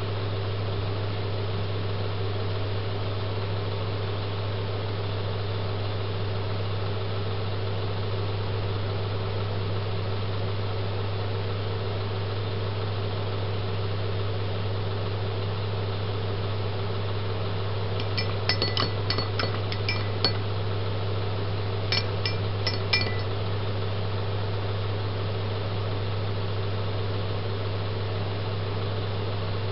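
Steady low electrical hum throughout, with two short clusters of small, sharp, high clinks a little past the middle.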